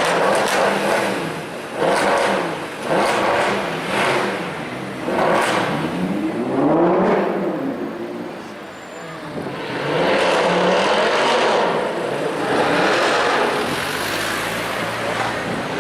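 Mercedes C63 AMG V8 being revved again and again, its pitch climbing and falling every second or two, with a brief lull about eight seconds in.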